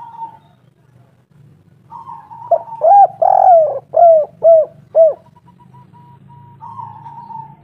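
Spotted dove cooing: a run of five loud coos about half a second apart, each falling in pitch, the second held longest. Fainter, higher dove calls sound at the start and again near the end, over a low steady hum.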